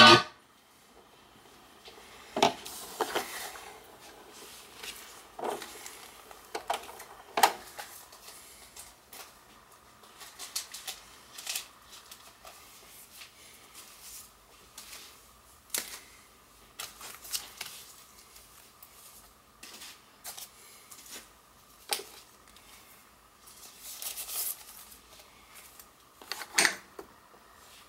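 Record and turntable handling: scattered light clicks, taps and knocks as a 7-inch vinyl single is lifted off and moved over the platter, with a louder cluster of knocks near the end, over a faint steady hum.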